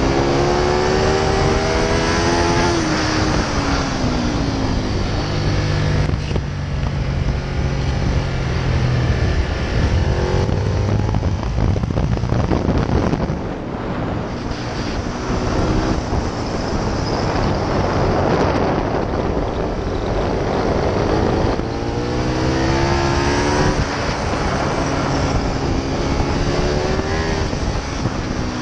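Ducati Multistrada's V-twin engine heard from the rider's helmet camera at track speed, under heavy wind rush. The engine note falls in pitch over the first few seconds as the bike slows, then climbs and falls again several times later on as the rider works the throttle through the corners.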